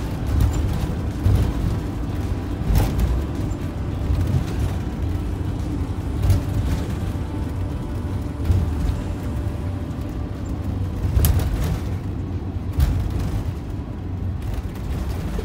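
Motorhome driving at road speed, heard from inside the cab: a steady low engine and tyre rumble, with occasional knocks and rattles as it rolls over the cracked pavement.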